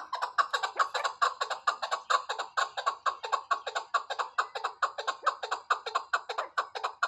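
Chukar partridge calling: a fast, unbroken run of repeated chuck notes, about six or seven a second.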